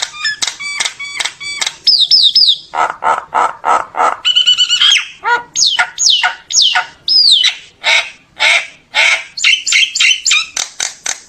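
Common myna singing a loud, varied song: runs of harsh repeated notes, a quick high chatter, and several clear whistles that slide downward in pitch, about halfway through. This is the myna's flock-calling song.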